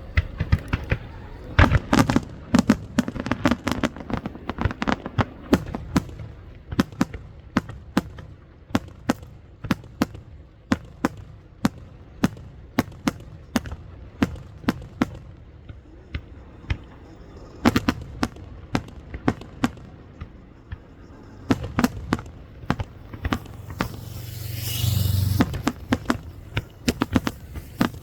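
Fireworks display: aerial shells bursting in a fast, irregular string of sharp bangs and crackles. Near the end a heavier barrage builds into a sustained rumble with a hiss over it.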